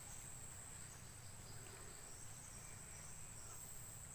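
Insects, of the cricket kind, buzzing in one steady, high, even tone, faint, over a low background rumble.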